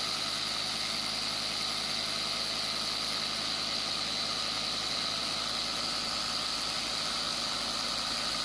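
3D-printed single-cylinder piston pump driven by a 550-size DC motor, running steadily with a high whine as it pumps water.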